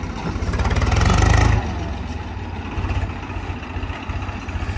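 Truck's diesel engine straining to pull the bogged-down truck free. It revs up about half a second in and runs hard for about a second, then drops back sharply and keeps running at a lower pitch.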